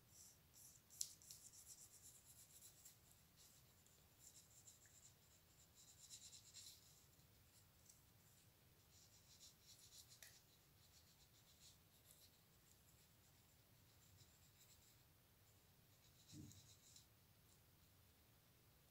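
Near silence with faint scratching that comes in several short spells, and one soft thump near the end.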